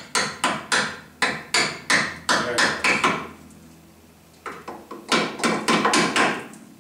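Light hammer taps driving a brake-hose spring clip into place at a C3 Corvette's front brake: a run of about ten sharp taps, a pause of about a second, then a second, quicker run of taps.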